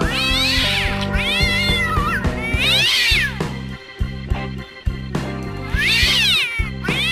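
Three long, drawn-out cat meows that rise and then fall in pitch, about three seconds apart, over background music with a steady bass line.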